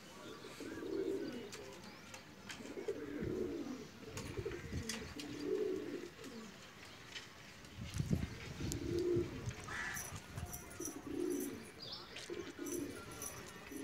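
Domestic pigeons cooing repeatedly, a low coo every second or two, with scattered light clicks among the flock.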